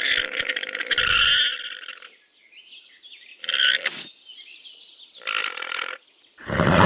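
Alpaca calling: a series of rough, rasping grunts separated by short pauses, the loudest near the end.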